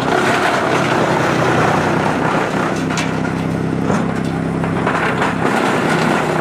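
Heavy-duty wood chipper running under load and chewing up wood, with a steady low hum and dense grinding noise. Sharp cracks of wood breaking come about three seconds in, again a second later, and near the end.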